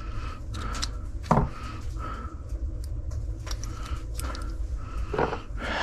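Scattered small metallic clicks and two louder knocks of hand work on a small metal part, over a steady low hum.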